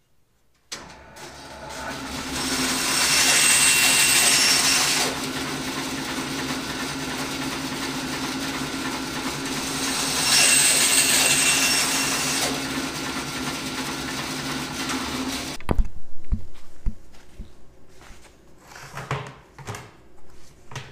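Rikon bandsaw starting up and running steadily, cutting through wood twice with louder, hissier stretches during each cut. The sound cuts off abruptly about three-quarters of the way through, followed by a few scattered knocks and clicks.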